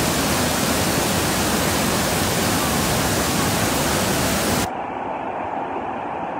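Rushing roar of a river in flood, its fast brown current churning in rapids: a dense, even noise. About four and a half seconds in, the hiss cuts off abruptly, leaving a quieter, duller rumble.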